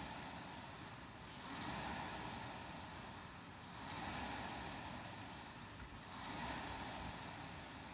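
Air-resistance rowing machine's flywheel fan whooshing with each stroke: a rushing sound that swells and fades about once every two and a half seconds, three strokes in all.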